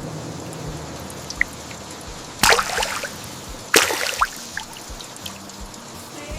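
Rainwater trickling and dripping through a freshly cleaned gutter, a steady hiss of running water with two louder splashes about two and a half and four seconds in. Soft music plays underneath.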